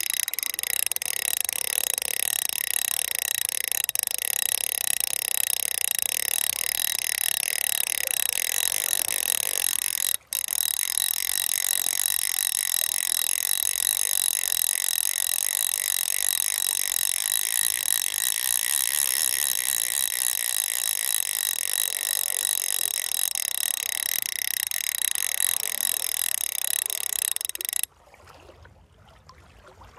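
Fly reel's click-and-pawl drag buzzing steadily as line is pulled off the spool, its pitch wavering with the spool's speed. It breaks off for an instant about ten seconds in and stops abruptly near the end.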